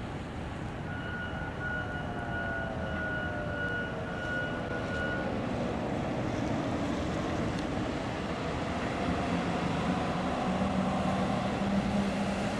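Fire engine approaching, its engine running louder as it nears. In the first seconds a steady high tone sounds for about four seconds, alongside a whine that falls slowly in pitch.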